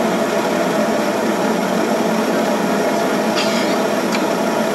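Turboprop engine running with its propeller turning on the ground, heard inside the passenger cabin as a loud, steady drone. Two faint clicks come near the end.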